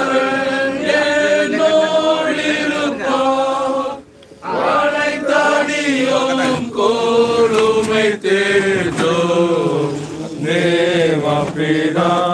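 Voices singing a slow Tamil Christian hymn, with long held notes and a short break between phrases about four seconds in.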